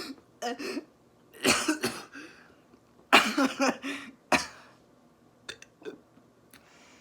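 A person burping in several short bursts, the loudest about three seconds in, followed by a few faint clicks.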